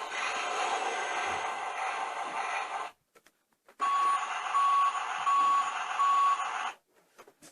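Truck sound effect: a steady engine-like rumble, then four evenly spaced reversing beeps over it, broken twice by abrupt cuts to dead silence.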